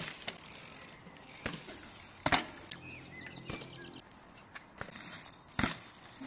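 Mountain bike riding past on a tarmac lane: quiet rolling noise with a few sharp knocks, the loudest about two seconds in and again about five and a half seconds in.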